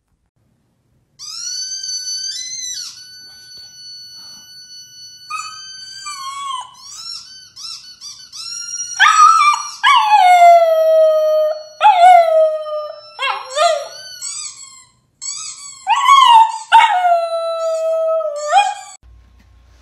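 A husky howling. It starts after about a second with high, drawn-out notes, then gives a string of five or six loud howls, each sliding down in pitch, before stopping shortly before the end.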